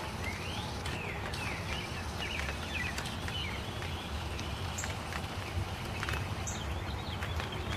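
Small birds chirping over and over, short rising and falling calls, over the steady patter of light rain falling in sunshine, with a low rumble underneath.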